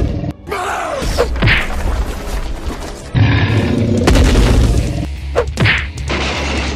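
Dubbed cartoon fight sound effects: heavy booming hits and whooshing swipes over background music, as a toy monster is struck and knocked down. A heavy hit lands about three seconds in, and another about a second later.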